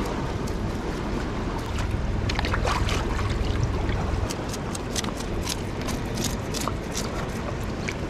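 Steady low wash of sea surf against lava rocks with wind on the microphone, and over it a run of short sharp clicks and small splashes as a fish is cut with scissors and rinsed in a rock pool.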